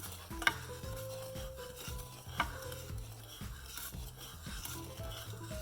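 A utensil stirring and scraping in a saucepan of sugar syrup, with two sharp clinks, about half a second and two and a half seconds in, over soft background music.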